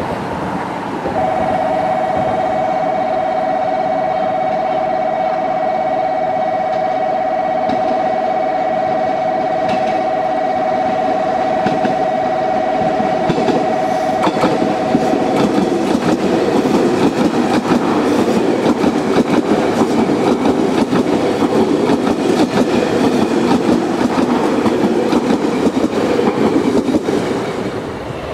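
JR Kyushu 883 series electric train running past, its wheels rumbling and clattering on the rails, loudest in the second half. A steady two-pitch warning tone sounds through the first half.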